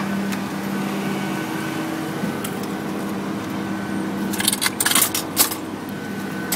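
Engine of a small double-drum road roller running steadily nearby, a constant hum with a few held tones. A short run of sharp clicks and rattles comes about four to five and a half seconds in.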